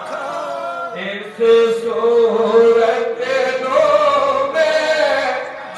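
A man chanting a devotional verse into a microphone, drawing out long held notes that slowly rise and fall; the voice grows louder about a second and a half in.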